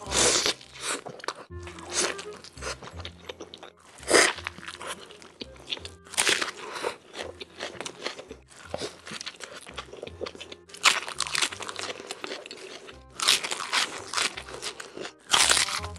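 Close-miked eating: big bites into a giant stacked cheeseburger and chewing, with loud crunches every second or two. Near the end, crisp bites into raw onion.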